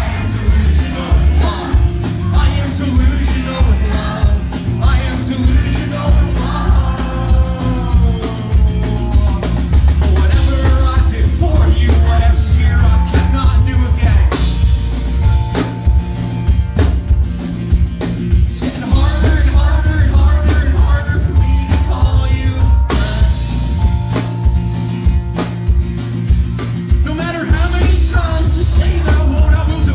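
A rock band playing live, with a lead vocal over drum kit and a heavy bass-dominated mix.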